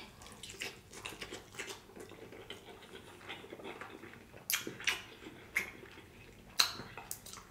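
Close-miked chewing of soft seafood meat dipped in Alfredo sauce: faint wet mouth clicks and lip smacks, with a few sharper smacks in the second half.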